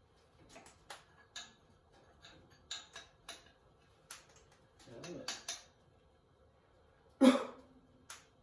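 Scattered light metallic clicks and clinks of metal parts and tools being handled, with a louder sharp sound about seven seconds in.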